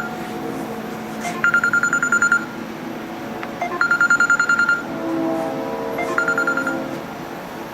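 Electronic telephone ringing: a warbling trill about a second long, repeated every couple of seconds, three times, the last ring cut short.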